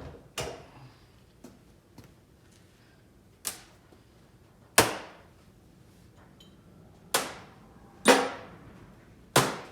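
Metal lathe parts being handled and set down on a workbench: a string of irregular sharp clanks and knocks, each ringing briefly, with the loudest about halfway through and near the end.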